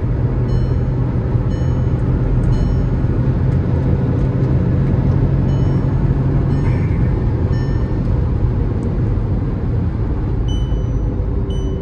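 Cabin noise at highway speed in a Stage 1 tuned Volkswagen Virtus 1.0 TSI with a manual gearbox: a steady low drone of engine, tyres and wind. Over it, short high beeps about once a second, the overspeed warning chime that sounds above 120 km/h.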